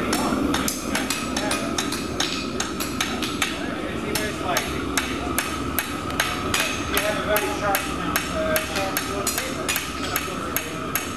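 Hand hammer striking hot iron on a steel anvil: a steady run of sharp metallic blows, about three a second, over a steady hum.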